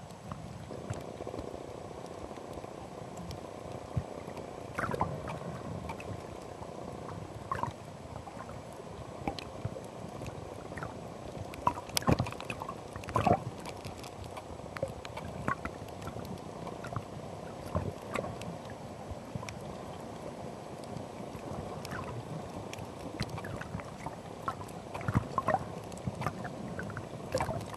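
Steady low sound of water, with irregular sharp clicks and knocks scattered through it, a few louder ones about halfway through and a cluster near the end.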